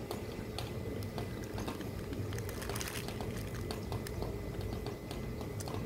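Close-up wet chewing of a mouthful of sushi: irregular small mouth clicks and smacks over a steady low background rumble.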